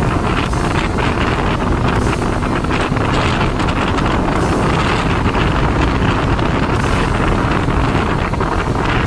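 Steady wind buffeting the microphone of a motorcycle riding at speed, a constant low rumble with no let-up.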